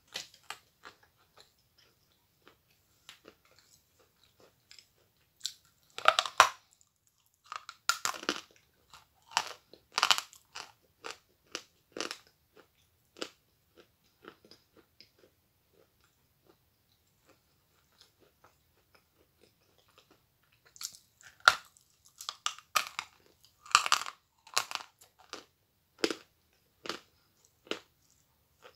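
A large lump of Akbulak chalk being bitten and chewed: sharp, dry crunches in clusters. Loud bites come at about 6 seconds and again from about 21 seconds, with a quieter stretch of only a few faint chews in between.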